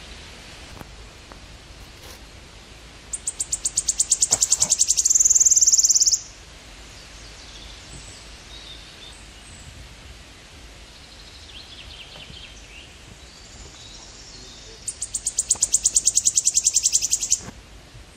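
A high-pitched insect call, heard twice: a rapid pulsing that grows louder and runs together into a steady buzz for about three seconds, then cuts off sharply.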